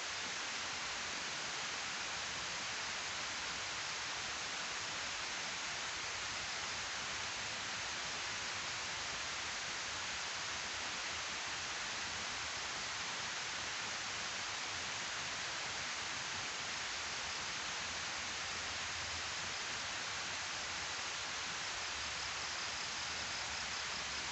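Water rushing down the face of a concrete weir spillway, a steady, even hiss.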